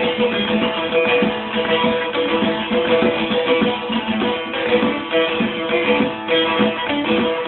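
Bağlama (saz) playing an instrumental passage of a Turkish folk tune: quick picked notes over steadily ringing drone strings.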